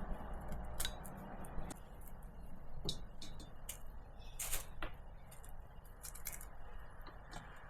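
Scattered light clicks and knocks, one every half second or so, the clearest about four and a half seconds in, over a low steady hum.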